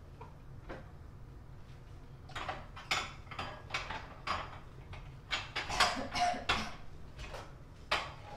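Kitchen dishes and utensils clattering and clinking: a quick, irregular run of knocks and clinks that starts about two seconds in.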